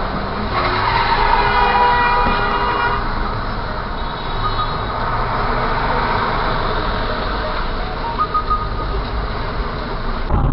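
A car horn held for about two and a half seconds, starting about half a second in, over the steady noise of traffic and the car's own running heard through the dash camera.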